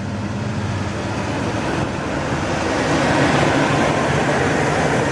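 Big-block 454 (7.4 L) V8 of a 1998 Chevrolet Silverado 3500 dually idling with a steady low hum. A broad rushing noise swells over it from about two seconds in.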